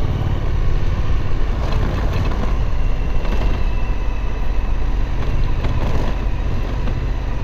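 Suzuki V-Strom 1050's V-twin engine running as the motorcycle is ridden along a dirt and gravel road, a steady low rumble throughout.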